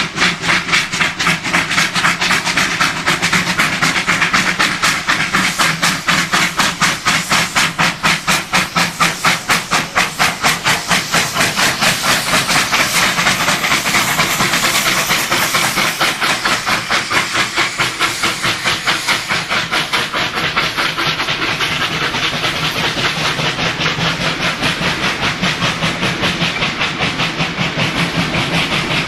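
Two R class 4-6-4 'Hudson' steam locomotives working hard double-headed as they pass, with a fast run of sharp exhaust beats and steam hiss, loudest in the first half. The beats then give way to a steadier rolling noise as the passenger carriages follow.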